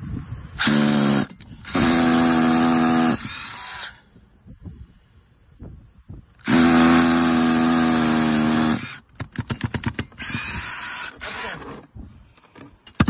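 18-volt cordless drill running in four bursts, the two longest about one and a half and two and a half seconds, as a long bit bores down through the roof opening toward the stud. A quick run of clicks comes about nine seconds in.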